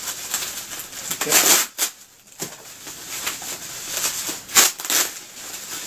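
Bubble wrap and styrofoam packing peanuts rustling and crinkling in irregular bursts as a packed item is worked out of a box. The loudest crinkle comes a little after halfway.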